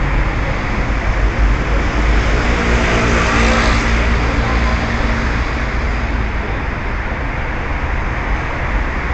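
Street traffic with a steady low rumble, and one motor vehicle passing, loudest about three seconds in, its engine note fading over the next few seconds.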